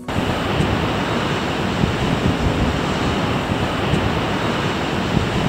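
Wind buffeting the microphone over the steady wash of sea surf breaking at the foot of chalk cliffs below.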